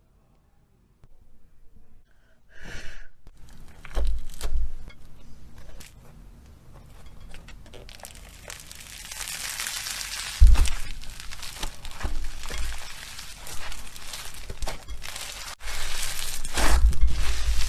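Slime being handled: irregular crackling and crinkling with a few dull thumps, the loudest about ten seconds in.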